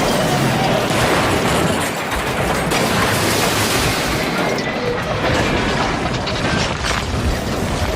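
A continuous, loud jumble of crashing and rumbling sound effects, with scattered sharp knocks.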